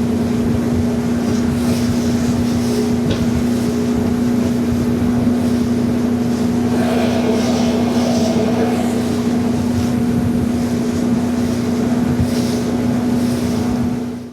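Boat's outboard motor running steadily at speed: a constant engine hum with a rushing noise of wind and water over it.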